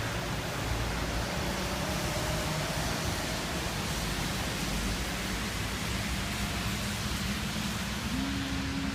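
Steady rushing noise with faint, long drawn-out low tones over it: the so-called 'sky trumpet' sounds. One tone rises slowly in pitch a couple of seconds in, and a lower drone sets in past the middle, with a short higher tone over it near the end.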